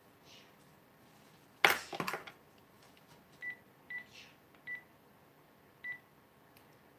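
A sharp clatter of a few knocks on the kitchen counter, then four short beeps from a smartphone as it is tapped, spaced irregularly.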